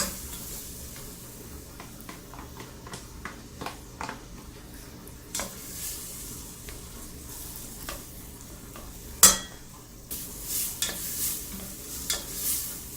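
Chopped onions and garlic sizzling as they sweat in melted butter in a pot, stirred with scraping and clicking of the utensil against the pot. One sharp knock about nine seconds in.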